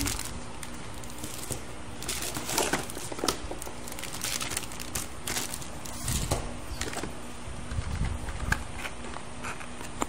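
Plastic bags and packaging crinkling and rustling as liquid-cooler parts are handled in their cardboard box, with irregular clicks and a few soft knocks.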